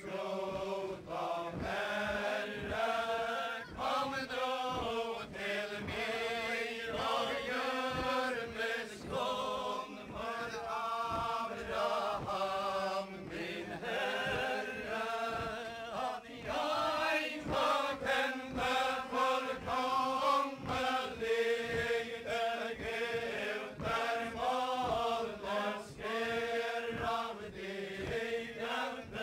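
Group of voices singing a Faroese chain-dance ballad in unison, unaccompanied, with the dancers' feet stamping in a steady rhythm underneath.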